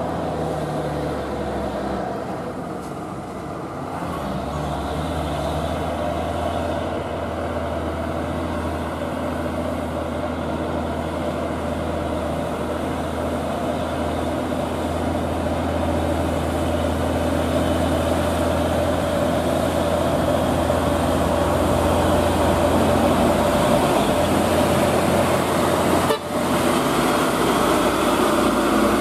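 Diesel engine of a heavily loaded Mitsubishi Fuso 220PS six-wheel-drive-axle (6x4) truck pulling steadily under load, a deep steady hum that grows louder as the truck approaches and passes close by.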